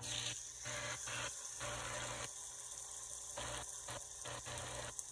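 Seasoned chicken breast sizzling in hot oil as it is laid into a frying pan to sear: a steady hiss that starts as the meat goes in, with louder surges coming and going.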